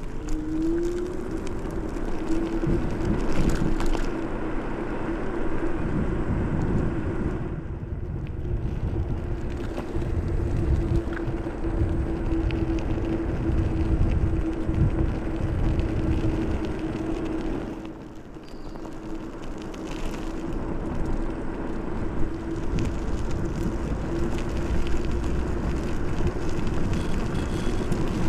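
Ninebot Max G30P electric kick scooter under way: the hub motor's steady whine rises in pitch as it picks up speed at the start, then holds level over a low, uneven wind rumble on the microphone. A little past halfway the whine fades out for several seconds and the sound drops, then the whine comes back near the end.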